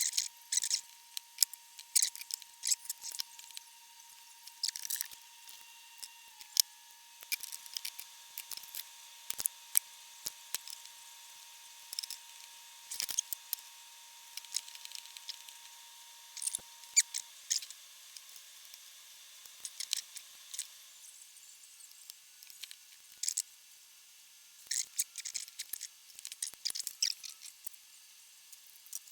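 Irregular small, sharp clicks and snips in clusters from hand tools and parts handled at an electronics workbench during a capacitor replacement job, with a faint steady whine for about the first half.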